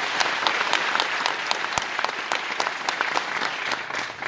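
Audience applauding, a dense patter of clapping that dies down near the end.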